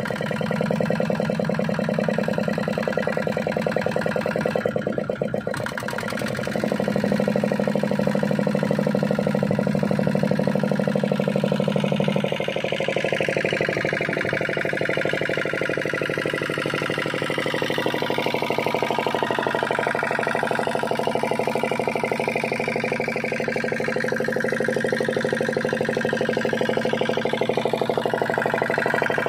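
Small single-cylinder inboard diesel engine of a wooden fishing boat running steadily under way, a fast even chugging drone whose pitch shifts slightly a few seconds in and again about twelve seconds in.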